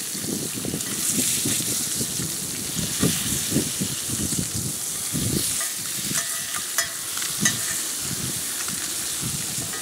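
Smallmouth bass fillets sizzling in butter in a cast iron skillet, with a wooden spatula and fork scraping and knocking against the pan as the fillets are flipped. A steady sizzle with irregular scrapes and a few sharper knocks.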